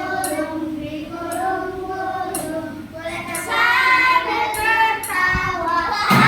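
Children singing a song together with long held notes, louder from about three and a half seconds in.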